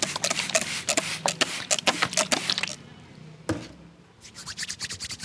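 Rapid hand slaps and chops of a percussive head massage, a fast run of strikes, one lone strike, then a second fast run.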